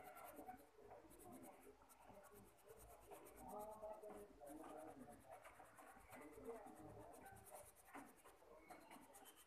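Faint scratching of a coloured pencil on paper, in quick back-and-forth shading strokes.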